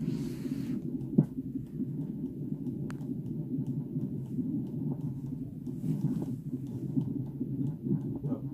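A fetal heart monitor's Doppler speaker playing the baby's heartbeat: a fast, steady pulsing, at about 160 beats a minute.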